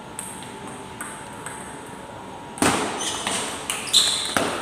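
Table tennis ball being hit back and forth: a few light taps, then from about two and a half seconds in a quick run of sharp clicks and knocks off the bats and table, the first one loud.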